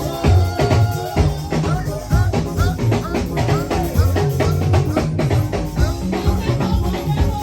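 Upbeat gospel music with a steady drum-kit beat.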